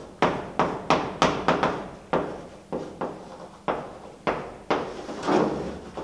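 Chalk on a blackboard while a word is written: about a dozen sharp taps and short scratches, then a longer scrape near the end as a curved line is drawn.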